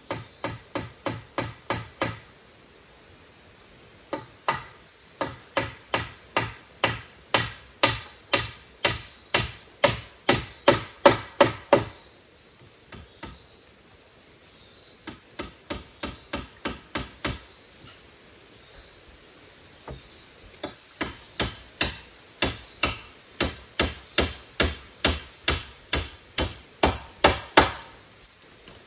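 Hammer driving nails into wood: quick, ringing strikes at about three a second, in four runs with short pauses between them, each run growing louder as it goes.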